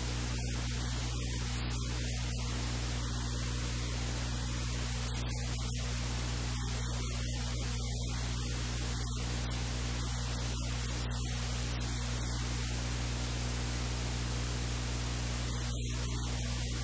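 Steady static hiss over a low electrical hum, unchanging throughout.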